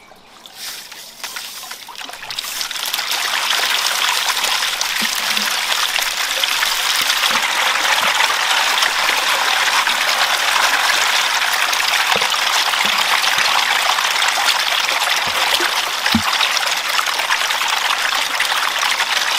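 Steady splashing and churning of water as a dense swarm of eels thrashes at the surface to take feed, building up over the first few seconds and then holding steady.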